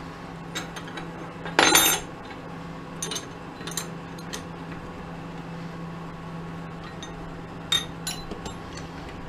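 Metal tools and parts clinking and being handled at a mini lathe, with one loud ringing clink just before two seconds in and scattered lighter clicks after it. A steady low hum runs underneath.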